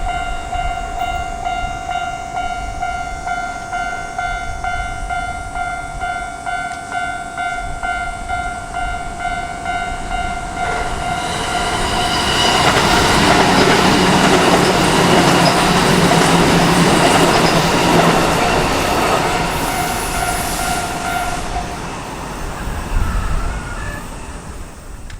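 Japanese railway level-crossing warning bell ringing in a steady repeating electronic clang while a train passes over the crossing. The train's running noise rises about eleven seconds in and is loudest for several seconds, and the bell stops near the end.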